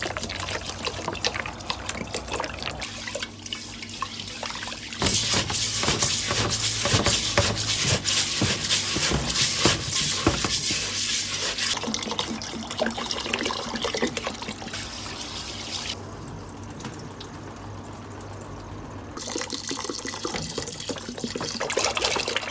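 Glutinous rice being washed by hand in water in a rice cooker's inner pot: wet grains swishing and rattling under the hand, loudest in the middle. Near the end, more water is poured in from a bottle.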